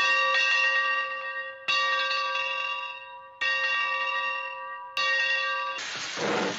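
A bell struck four times, about every second and a half, each strike ringing with several steady tones and fading away. Near the end the ringing gives way to a broad rushing noise.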